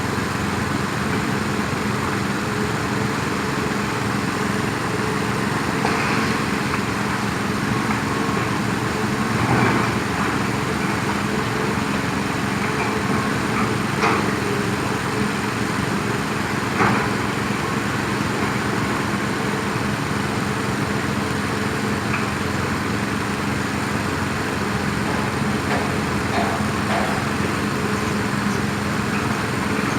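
Heavy diesel engine of construction machinery running steadily, with a few brief knocks over it.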